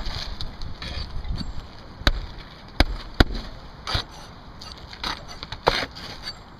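Hammer nailing asphalt roof shingles: a series of sharp, irregularly spaced knocks starting about two seconds in.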